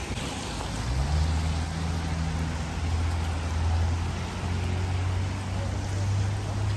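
Steady hiss of rain, with a vehicle engine humming low and steady from about a second in.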